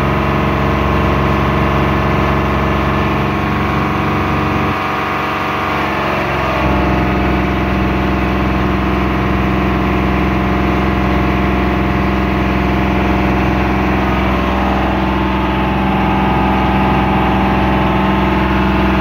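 Motor boat's engine running steadily, heard from on board. Its low hum drops away for about two seconds around five seconds in, then returns.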